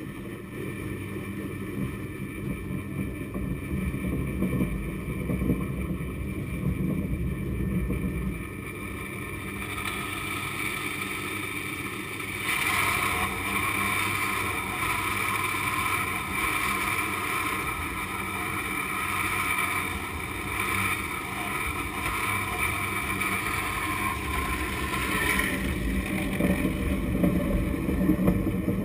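San Francisco cable car haul cable running through its underground conduit: a steady mechanical rumble, with a steady high whine joining about twelve seconds in and dropping away near the end.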